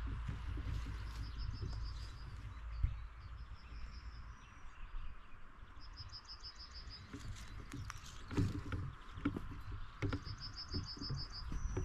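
Outdoor ambience of wind rumbling on the microphone, with a small songbird singing a short trill of quick, evenly repeated high notes four times. A few soft knocks and rustles come through, most about eight seconds in.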